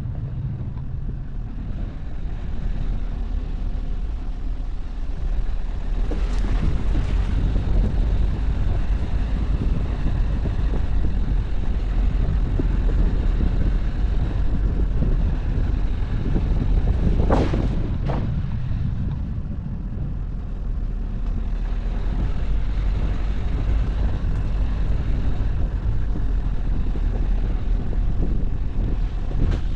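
Car driving off-road: a steady low rumble of engine and tyres, with a couple of sharp knocks about six and seventeen seconds in.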